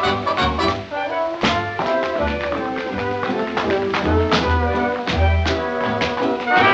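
Brass-led swing orchestra playing, with the sharp clicks of tap shoes striking the floor in irregular rhythmic bursts over the music.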